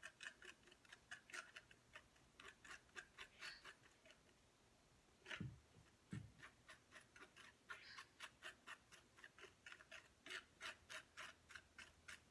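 Faint, quick light taps and scrapes of a palette knife dabbing acrylic paint mixed with phosphorescent gel onto a painting, several a second in uneven runs, with two duller knocks about five and six seconds in.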